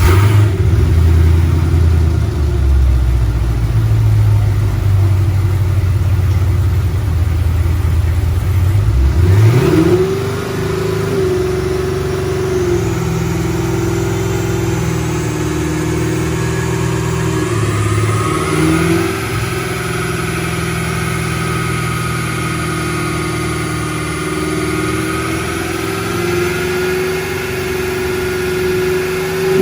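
2016 Camaro SS's 6.2-litre LT1 V8, fitted with a Holley Hi-Ram intake, running at a low uneven idle. About nine seconds in it revs up sharply and then holds at high revs, dipping briefly now and then.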